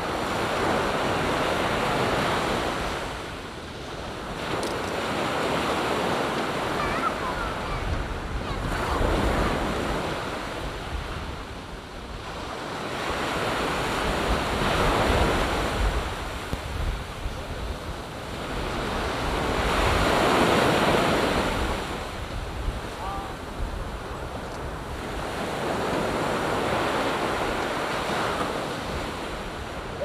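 Small waves breaking and washing up a sandy beach, the surf swelling and fading every four to six seconds.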